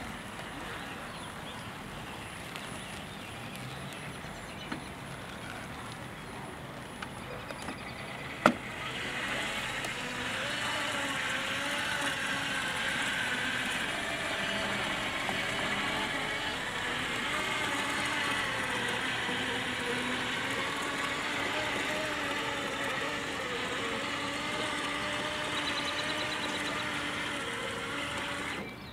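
Yarbo robot's electric motors whining as it drives and turns on grass. A sharp click comes about eight seconds in, after which the whine grows louder and wavers up and down in pitch.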